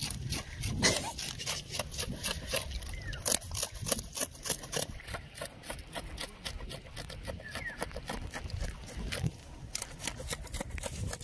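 A knife scraping and cutting at freshly caught fish as they are cleaned: rapid, irregular scraping clicks, thickest in the first five seconds and again near the end.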